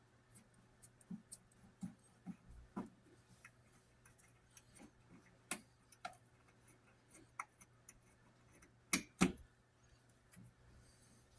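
Scattered light clicks and taps of hand tools and small hardware while a wall receptacle is taken apart, with two louder knocks in quick succession about nine seconds in.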